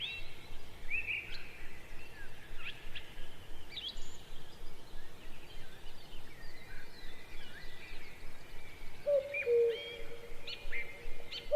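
Birds chirping and whistling: short, quick calls overlapping one another, with a lower, held call joining about nine seconds in.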